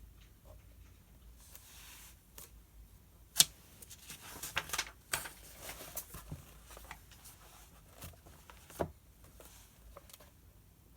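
Paper handling at a desk: sheets of a study book rustling and being turned, with several sharp taps and clicks. The loudest tap is about three and a half seconds in, and a cluster of rustles and clicks follows over the next two seconds.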